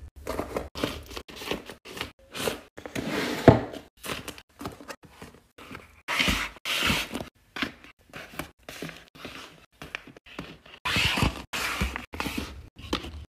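Handmade taped paper squishies being handled and set down on a shelf: irregular rustling and crinkling of paper and tape, with soft thunks as each one is placed. The loudest rustling comes about six seconds in and again about eleven seconds in.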